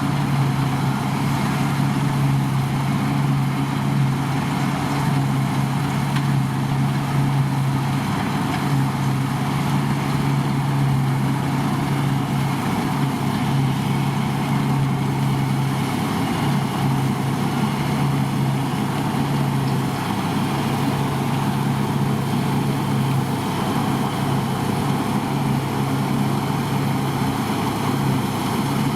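Deutz-Fahr combine harvester running steadily with a constant engine drone and a broad mechanical rush.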